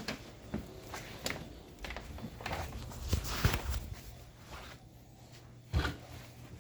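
Scattered light clicks, knocks and rustles of things being handled and moved, with one louder thump near the end.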